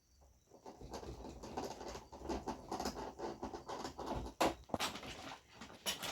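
Hands handling parts of an opened LED TV: irregular rustling and scratching, with sharp clicks about four and a half and six seconds in.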